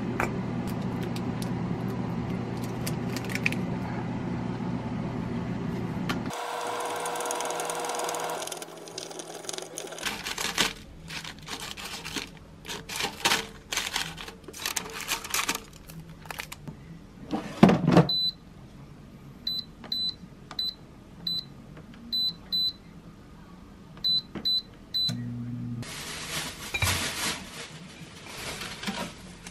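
Kitchen cooking sounds: a steady appliance hum for the first six seconds, then chopsticks clicking and tapping as toast sandwiches are turned in a parchment-lined air-fryer basket. In the second half comes a series of about a dozen short high beeps, often in pairs, typical of an appliance's control panel being set.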